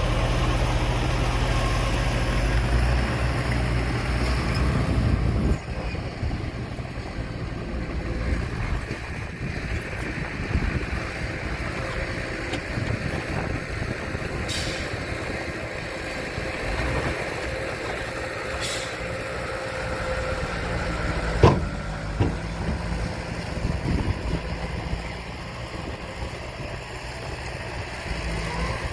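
Heavy truck engine running, louder for the first five seconds or so and then quieter. Two brief high hisses and a single sharp knock come later on.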